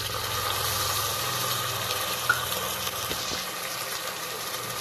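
Lima beans and chopped onions sizzling in hot oil in a pressure cooker, a steady hiss.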